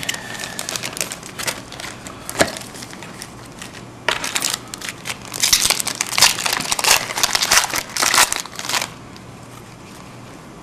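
Upper Deck hockey card pack wrapper being torn open and crumpled in the hands: a run of sharp crinkles, thickest from about five to nine seconds in, then it stops.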